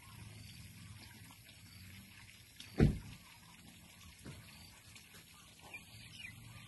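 Quiet outdoor ambience: a low steady rumble, one loud thump nearly three seconds in, and a few faint high chirps near the end.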